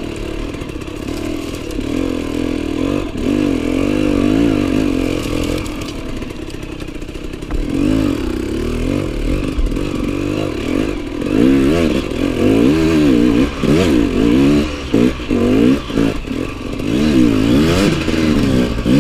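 Off-road motorcycle engine revving up and down as it is ridden over rough ground, with quick, repeated bursts of throttle in the second half.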